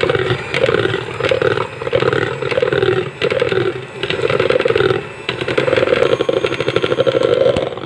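Electric hand mixer running, its twin wire beaters creaming margarine and egg yolk in a bowl. The motor noise swells and dips about once a second as the beaters work through the mixture, and it stops just at the end.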